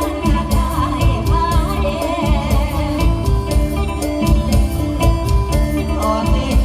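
Live Isan mor lam band music: a sung melody over a steady drum beat and heavy bass.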